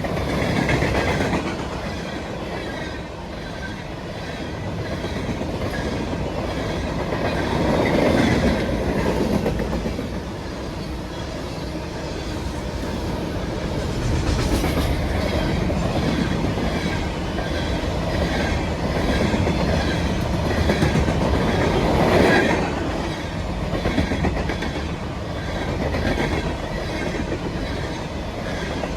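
CSX grain train's freight cars rolling past, steel wheels clicking over the rail joints in a steady rhythm under a continuous rumble that swells louder a few times.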